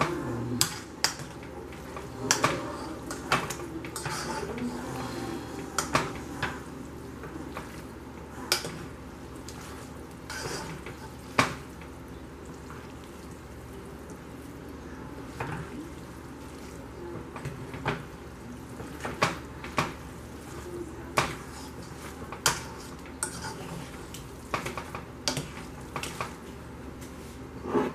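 A utensil stirring and tossing spaghetti in a pot of sauce, knocking and scraping against the pot's sides at irregular intervals.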